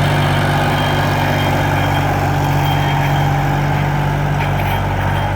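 A motor vehicle's engine running steadily, a low, even hum that holds one pitch throughout.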